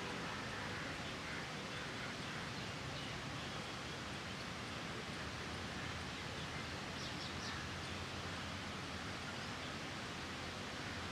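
Steady outdoor background hiss, with a few faint, short, high chirps about seven seconds in.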